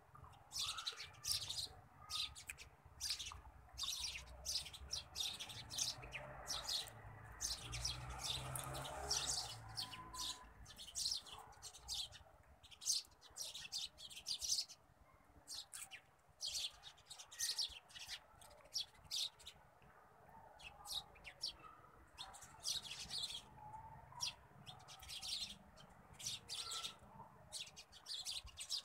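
Small birds chirping in quick, irregular bursts in the background, with a soft low rumble of handling noise in the middle.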